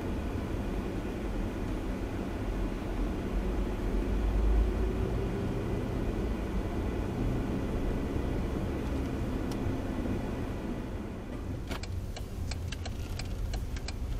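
Steady low rumble of a vehicle's engine and tyres, heard from inside the moving vehicle at low speed. A run of sharp ticking clicks starts about three seconds before the end.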